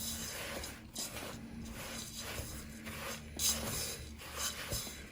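A utensil stirring and scraping crushed digestive biscuits and condensed milk in a bowl, in repeated rasping strokes about once a second.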